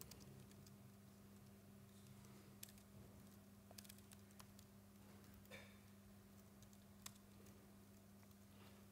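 Faint laptop keyboard typing: a few scattered keystroke clicks over a steady low hum.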